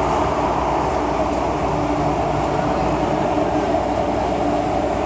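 Interior running noise of an MTR M-Train metro car, heard beside the doors: a steady rumble of wheels on rail and car body, with a low steady hum under it.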